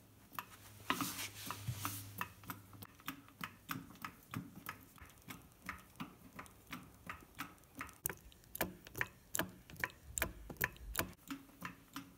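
Hand-operated hydraulic pump being stroked, its handle and valves clicking in a steady rhythm of about three clicks a second, as it pumps oil into a rebuilt 25-ton single-acting cylinder.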